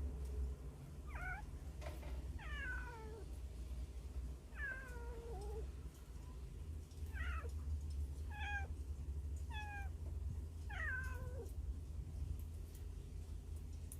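Hungry kittens mewing from inside a hole: about seven high cries, each sliding down in pitch, spaced a second or two apart and stopping a few seconds before the end. A steady low hum lies beneath.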